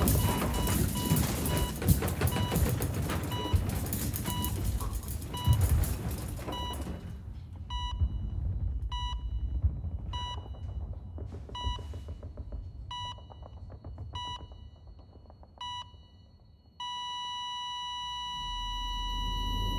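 Hospital heart monitor beeping about twice a second over loud noise; the noise drops away and the beeps slow and come unevenly, then about seventeen seconds in they merge into one continuous flatline tone: the patient's heart has stopped.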